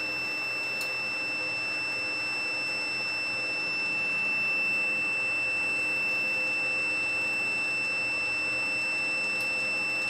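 Digital multimeter's continuity buzzer sounding one continuous high-pitched beep while its probes are held across a washing-machine motor winding of about 5.5 ohms, a low enough resistance to set the buzzer off.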